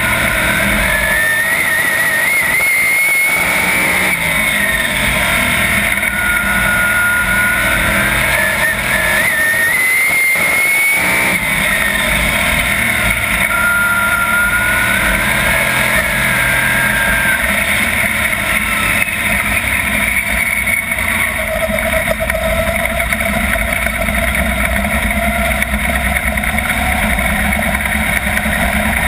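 Onboard sound of a 410 sprint car's 410-cubic-inch V8 at racing speed, loud and continuous. The engine's pitch climbs twice, easing off in between, then holds fairly steady.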